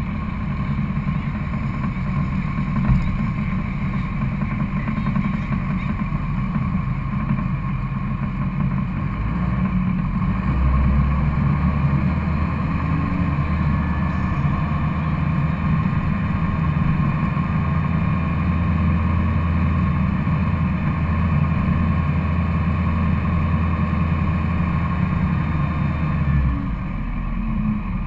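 Duramax diesel pickup engine idling and running at low speed as the truck rolls along, a steady deep drone that grows stronger about ten seconds in and eases again near the end.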